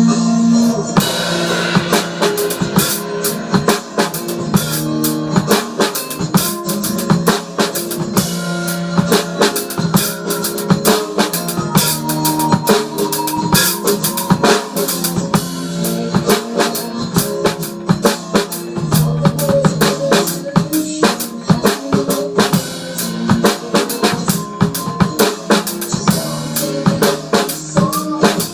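Drum kit played with dense, fast snare and bass-drum hits and cymbals, over recorded music with sustained pitched instruments.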